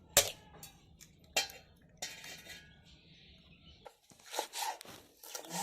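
Kitchen dishes and utensils being handled: a few sharp knocks and clinks, a short scrape about two seconds in, and a quick run of clatter near the end.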